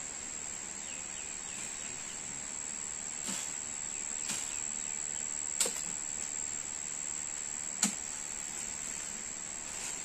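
A steady high insect whine, with four sharp cracks of branches and twigs from someone climbing in a tree. The loudest two come about five and a half and eight seconds in.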